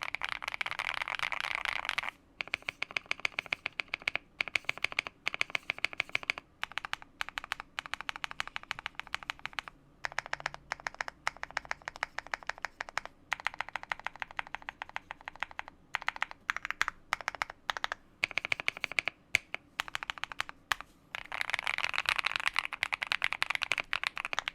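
Typing on a Monsgeek M1 mechanical keyboard with Akko Cream Yellow linear switches: a quick, creamy run of key clicks with a few brief pauses, densest at the start and near the end.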